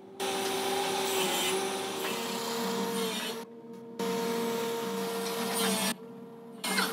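A small electric motor running steadily: a steady hum with a hissing rush, its pitch dipping slightly now and then. It breaks off abruptly twice, about three and a half and six seconds in, and comes back each time.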